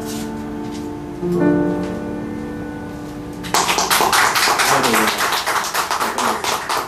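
Piano chords ringing out and fading, with a new chord struck about a second in; about three and a half seconds in, audience applause breaks out and carries on.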